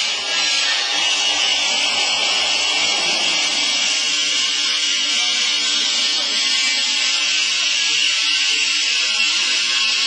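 Horizontal baler running, a steady hiss over a faint low hum, with a few faint knocks in the first few seconds.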